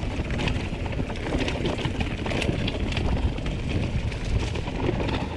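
Canyon mountain bike riding downhill on a dirt trail covered in dry leaves: tyres crunching over leaves and stones, with many short clicks and rattles from the bike over a steady low rumble of wind on the camera microphone.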